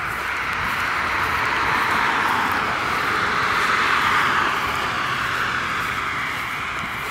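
A car driving past on the road, its tyre noise swelling to a peak about midway and then fading as it drives off.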